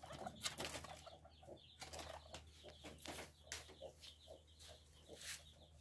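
Faint, irregular rustling and clicking of guinea pigs moving about in the hay and greens of their hutch.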